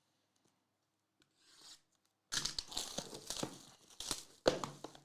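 Trading card packaging being torn open, crinkling and tearing, starting about two seconds in after a near-silent pause.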